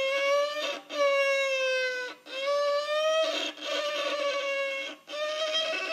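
Viola bowed in about five long, sustained notes of roughly a second each, with short breaks between them and the pitch sliding up and down slightly.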